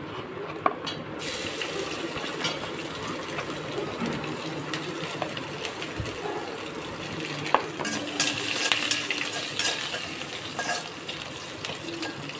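Crushed garlic sizzling in hot ghee in a kadai with the tempering of mustard seeds, cumin, urad dal and curry leaves; the sizzle sets in about a second in as the garlic goes into the pan. A slotted ladle stirring and clinking against the pan, busier in the second half.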